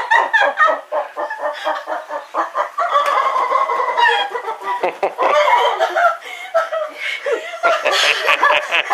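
A woman laughing hard in rapid, high-pitched cackling bursts.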